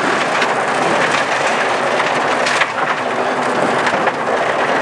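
Audi 80 quattro rally car driving fast on gravel, heard from inside the cabin: a steady, loud rush and rattle of loose stones thrown against the underbody and wheel arches, with the engine running under it.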